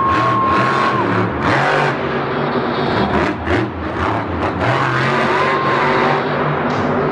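Grave Digger monster truck's supercharged engine revving hard as the truck drives, wheelies and turns on the dirt, its pitch rising and falling with the throttle.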